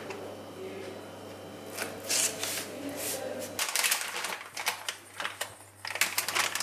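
Irregular clatter and rustle of objects being handled, over a steady low hum that stops about three and a half seconds in.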